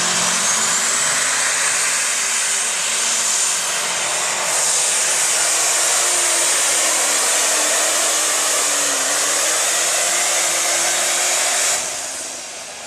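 Open Super Stock pulling tractor's turbocharged engine running flat out under load as it drags the sled, a high turbo whine that rises as it starts and then holds steady over the engine's noise. The sound drops away sharply near the end.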